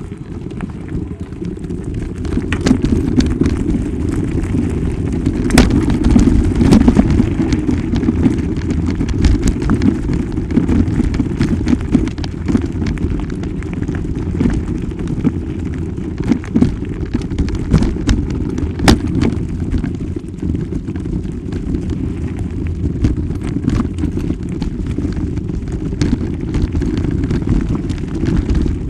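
Low, rumbling wind and handling noise on a small camera's microphone as it is carried along, with scattered clicks and knocks throughout.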